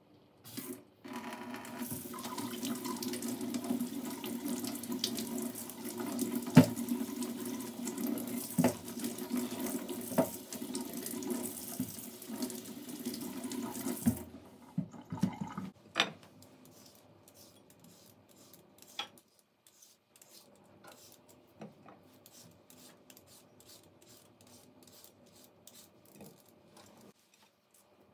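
Water running from a tap into a sink for about thirteen seconds, with a few sharp knocks along the way, then turned off. Afterwards only faint clicks and handling sounds.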